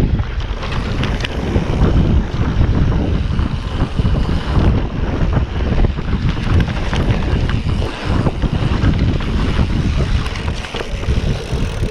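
Wind buffeting the microphone of a camera riding along on a mountain bike descending a dirt trail, a heavy low rushing with scattered clicks and knocks from the bike clattering over the ground.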